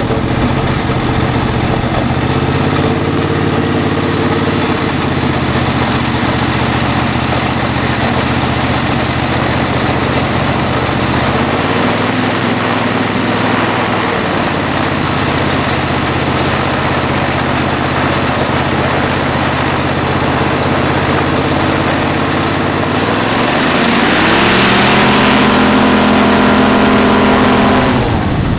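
Kohler 725 cc V-twin four-stroke engine of an ultralight trike, running at a steady low speed, then revving up about 23 seconds in and holding the higher speed, with more propeller rush, before dropping back right at the end.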